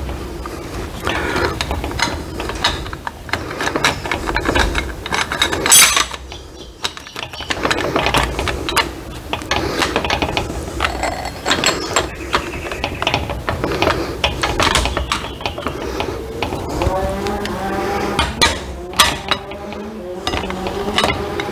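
Steel transmission gears and clutch-pack parts from a Case 580SK backhoe clicking and clinking against each other as a gear and clutch drum are worked by hand onto a splined shaft, with many small metal knocks throughout.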